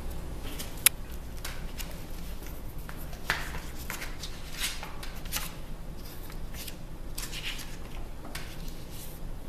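Hardcover picture book being handled and opened, paper rustling as the pages turn, with scattered light clicks and taps, the sharpest about a second in. A steady low hum runs underneath.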